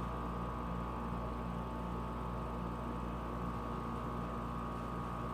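Steady background hum with several faint, unchanging tones: room tone.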